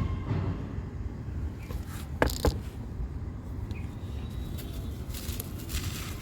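Crisp crunching of a dry, crumbly yellow block, with two sharp cracks a little over two seconds in and softer crumbling near the end, over a steady low background rumble.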